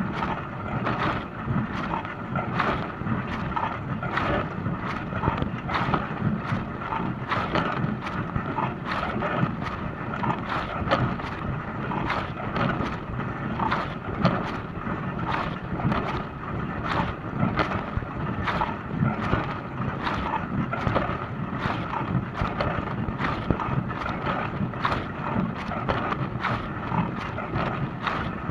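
Dishwasher running its wash cycle: water spraying and splashing inside the tub over a steady low pump hum, with no change throughout.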